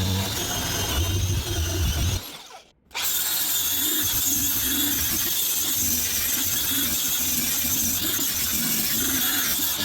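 Handheld power tool running against the rusty steel head of an old broad axe, cleaning off rust and pitting, with a steady high whine. It drops out briefly just under three seconds in, then runs on steadily.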